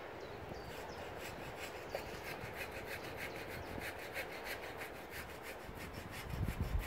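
Hand saw cutting wood in quick, even back-and-forth strokes. A low rumble of handling noise comes in near the end.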